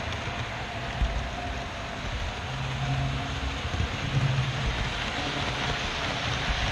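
HO-scale model train running along its track, heard from on board: a steady rumble and hiss of wheels on rail, with a few small clicks.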